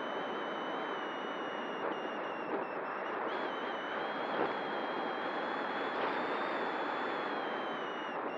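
Electric motor and propeller of an RC glider whining at a steady high pitch over a rush of wind noise, as heard from a camera on board the plane. The whine steps up slightly about three seconds in and sags a little near the end.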